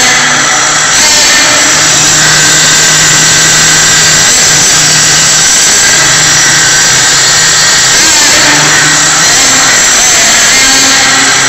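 Small nitro engine of an HPI Savage X RC monster truck running loud, its high buzzing note breaking off and coming back every second or so as the throttle is worked.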